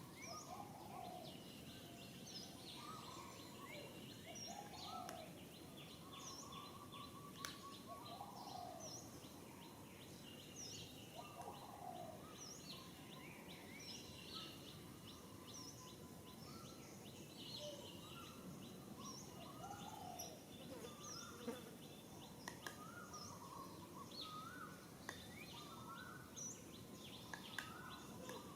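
Faint outdoor ambience: several birds chirping, with many short high chirps and lower arching whistled notes repeating throughout, over a steady background hiss.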